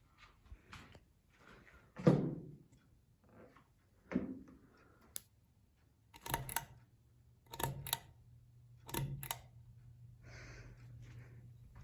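Knocks, then three pairs of sharp clicks, as a 1988/1989 Halsey ceiling fan is handled and switched. A low steady motor hum comes on with the first clicks and continues.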